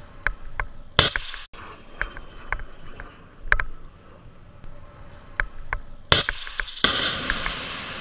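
Shoulder-fired anti-aircraft missile being launched about six seconds in: two loud blasts in quick succession, then a long hissing rush as the rocket motor burns. Before it, scattered sharp clicks and one brief loud burst about a second in.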